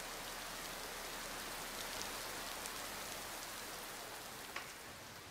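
Steady rain falling, slowly fading away toward the end, with a few faint ticks.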